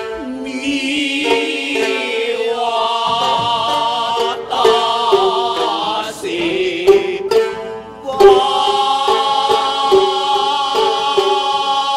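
Bunraku gidayū music: a chanting voice holds long, wavering notes, with sharp shamisen plucks every second or two.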